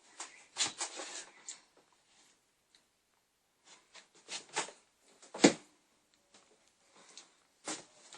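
A string of short scrapes, rustles and knocks with silent gaps between them, the loudest a single knock about five and a half seconds in.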